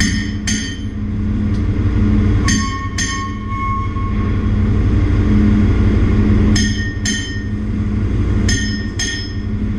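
Steady drone and hum of a ship's engine-room machinery, heard from inside the main engine's crankcase. Four pairs of sharp metallic clinks ring briefly over it, the two clinks of each pair about half a second apart.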